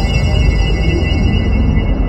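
Cinematic logo-intro sound design: a deep, steady rumble under sustained high ringing tones, the highest of which fade away near the end.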